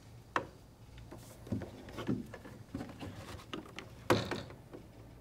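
Handling noise as cables are worked and a laptop is moved inside a road case: soft rustling and light clicks, a sharp knock about half a second in, and a louder knock about four seconds in.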